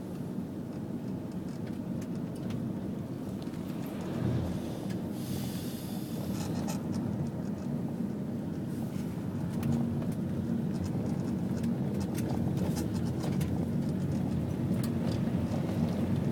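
Steady low rumble of a car driving, heard from inside the cabin, with scattered small clicks and rattles.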